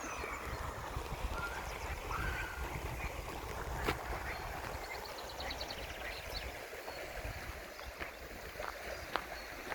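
Stream water flowing with a steady rush, under an uneven low rumble. Small birds give a few short chirps and one quick trill about three seconds in, with a few sharp clicks here and there.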